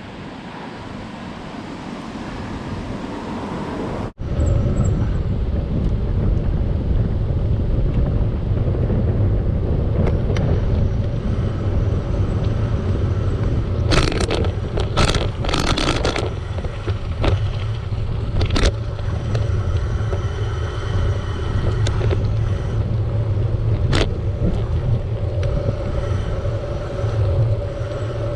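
Wind rushing over the microphone with road rumble from a bicycle coasting downhill at speed, growing louder over the first few seconds. Then a steady heavy low rumble, broken by a few sharp clatters from bumps in the road.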